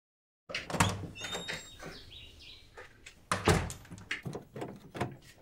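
A wooden door being worked open: clicks and rattles of its handle and latch, with two heavy thumps, one about a second in and another about halfway.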